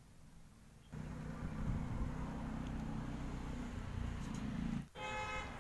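A motor vehicle engine running steadily in the background, starting suddenly about a second in and cutting off abruptly near the end, followed by a brief high tone.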